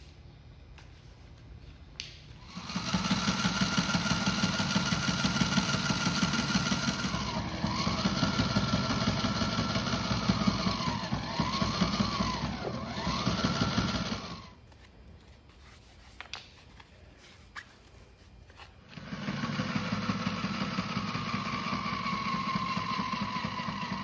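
Sewing machine running, a motor whine over rapid needle strokes, stitching a basted folded hem in marine fabric. It starts about three seconds in and slows and speeds up several times. It stops for a few seconds of small clicks, then runs again for the last five seconds.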